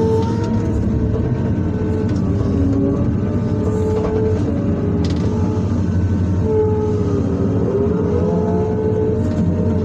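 Excavator diesel engine running under load with its hydraulics whining, the whine gliding up and down in pitch as the boom and bucket work, heard from inside the operator's cab.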